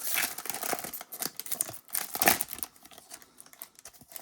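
Plastic wrapper of a Bowman baseball card pack being torn open and crinkled, in irregular rustling bursts that are loudest about two seconds in, followed by quieter handling.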